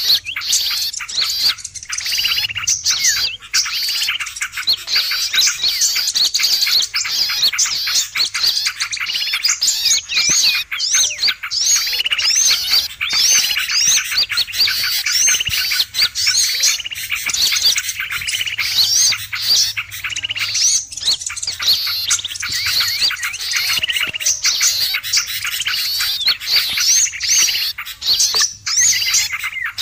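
Bird-lure recording of a noisy flock of small songbirds: many birds chirping, trilling and calling over one another in a dense, unbroken chorus of high-pitched notes.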